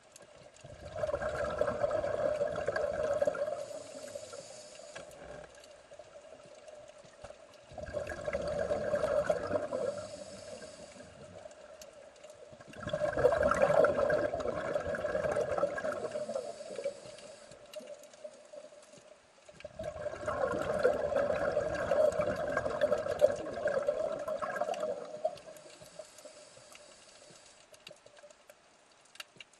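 Scuba diver's exhaled air bubbling out of a regulator, heard underwater: four bubbling bursts, each a few seconds long, about six seconds apart, with quiet between breaths.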